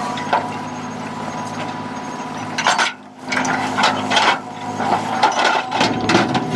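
A boat's engine running with a steady hum, joined by irregular knocks and clatter. The sound drops away briefly about three seconds in, and then the knocking grows more frequent.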